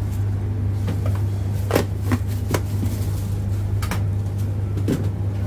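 Hands working at a pizza counter: a handful of short light clicks and knocks as toppings and pans are handled, over a steady low hum.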